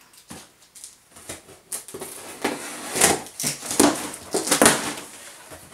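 Cardboard carton being opened by hand: a run of scraping, crackling handling noises from the flaps, sparse at first and busier and louder from about two seconds in.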